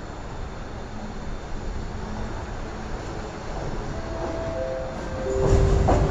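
MTR Kwun Tong line C-train pulling into the station and braking: a steady rumble from the wheels on the rails grows louder. In the last two seconds a whine steps down in pitch three times as the train slows, and the rumble rises sharply near the end.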